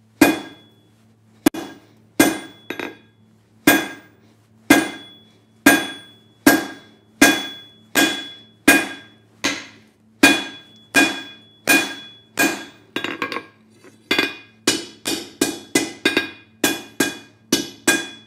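Hand hammer striking a glowing half-inch round steel bar on an anvil, drawing out a taper: a steady run of blows about one a second, each with a short metallic ring, quickening to about two a second over the last few seconds. A faint steady low hum runs underneath.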